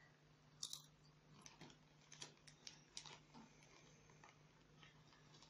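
Near silence: room tone with a low hum and a few faint, scattered clicks and taps.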